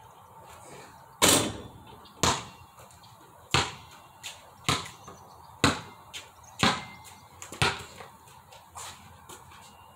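A ball bouncing repeatedly, about ten hard bounces at an uneven pace of roughly one a second, some louder than others.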